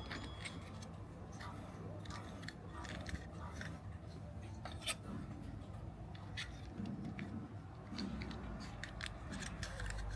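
Irregular light clicks and taps of hard plastic toy pistol parts being handled and pressed together during reassembly, growing sharper and more frequent near the end, over a steady faint low hum.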